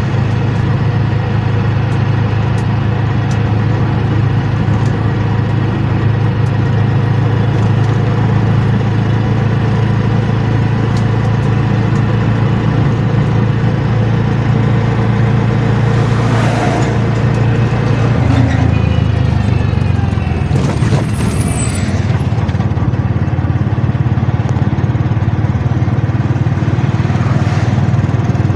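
A motor engine running steadily with a low hum, its note shifting about eighteen seconds in.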